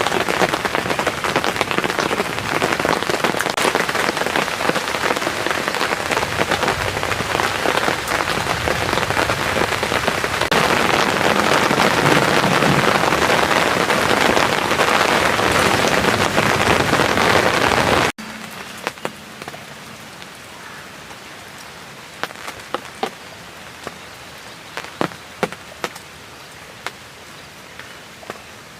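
Rain pattering steadily and densely, growing a little louder, then cut off abruptly about eighteen seconds in. After that there is only a quiet background with scattered faint taps and clicks.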